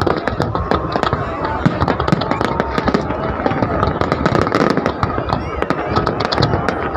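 New Year's fireworks going off in a dense, continuous barrage of rapid crackles and pops, with a crowd's voices underneath.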